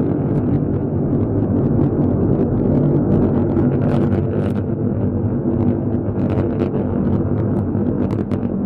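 Steady low rumble of a rocket in flight, heard from a distance, with light crackling over it.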